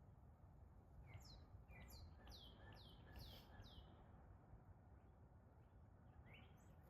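Faint songbird singing: a quick phrase of about eight falling notes, then a single rising note near the end, over a low steady rumble of wind.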